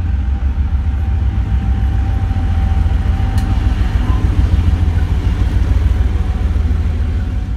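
Soviet M62-type diesel locomotive running light past at close range, its diesel engine giving a loud, deep rumble that swells as it passes and begins to fade at the very end.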